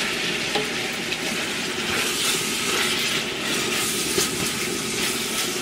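Saltfish, onions, sweet peppers and tomatoes sizzling steadily as they fry in a large metal pot, with an occasional scrape of a spatula stirring them.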